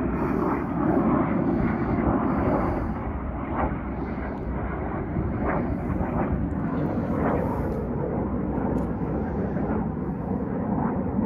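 Aerobatic display jets flying overhead: a continuous, steady rush of jet engine noise.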